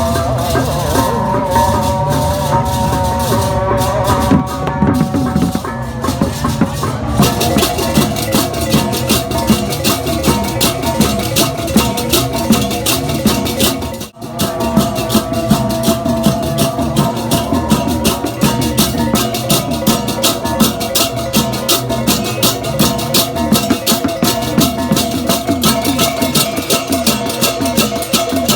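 Balinese gamelan music with drums and metallic percussion: steady ringing metallophone tones under fast clashing cymbals that thicken after a few seconds, with a brief break about halfway.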